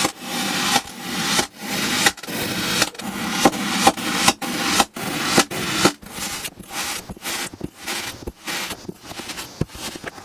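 Knife slicing repeatedly through a block of kinetic sand: about nine crunchy, scraping strokes that each build up and end in a sharp tap as the blade reaches the board, then quicker, shorter cuts in the last few seconds.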